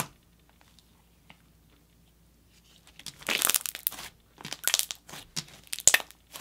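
Thick jelly slime worked by hand. There is a sharp pop at the start, then near quiet as it is stretched. From about three seconds in come crackling squishes and several sharp bubble pops as it is folded and pressed down.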